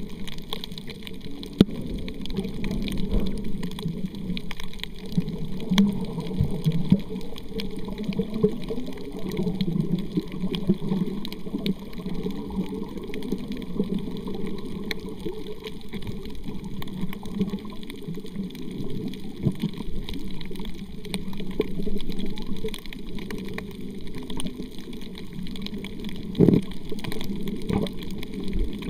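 Muffled underwater water noise from a camera held beneath the surface: a steady low sloshing and gurgling with scattered faint clicks.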